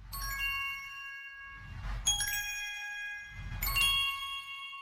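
Logo-intro sound effect: three bright, shimmering chime strikes, the second about two seconds after the first and the third about a second and a half later. Each comes with a low swell beneath it, and the ringing tones fade away slowly after the last strike.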